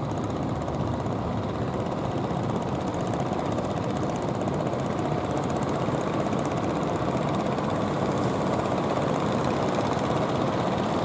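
Fishing boats' engines running steadily, a dense rumble that grows a little louder near the end.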